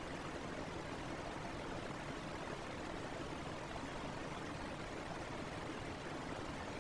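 Fan running steadily: an even, unchanging rush of air noise.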